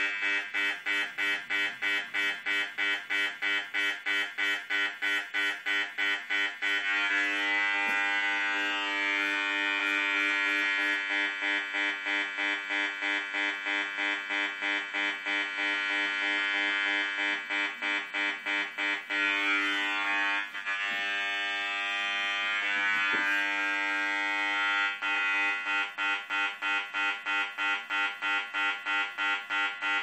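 Handheld EMF detector's speaker buzzing as it picks up the pulsed microwave transmissions of a DECT digital baby monitor's base unit. The buzz is continuous, and in stretches it beats rapidly in even pulses.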